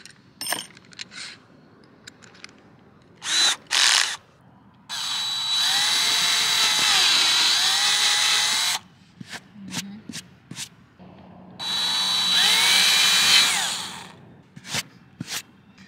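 Cordless drill boring a twist bit into the RV roof: two short blips, then two runs of several seconds each, the motor's whine shifting in pitch as the bit bites. Clicks near the start as the bit is fitted in the keyless chuck.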